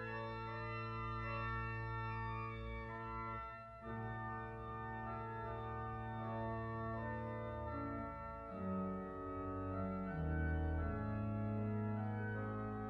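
Slow instrumental music of long, held chords. There is a brief dip a little over three seconds in, and deeper bass notes move in about two-thirds of the way through.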